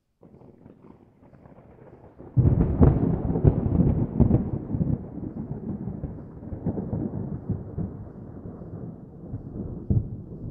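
Thunder: a faint low rumble, then a sudden loud clap about two seconds in that crackles for a couple of seconds before rolling off into a long, fading rumble, with one more short crack near the end.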